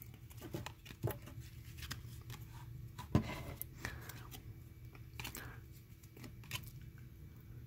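Faint sliding and a few soft clicks of baseball trading cards being handled one at a time, each card slid off the front of a stack in the hands and tucked behind the rest.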